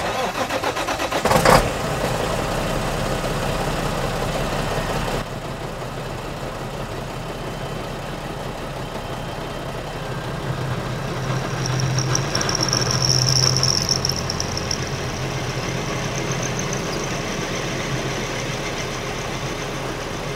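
Benchtop drill press switched on at its push-button switch and running, with a sharp knock about a second and a half in. From about eleven seconds a high squeal rises over the motor hum, loudest around thirteen seconds, as the bit cuts into metal.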